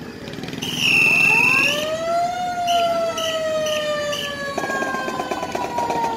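An emergency vehicle's siren in a parade: a loud steady high blast for about a second, then the siren winds up and slowly winds down, with four short high toots partway through.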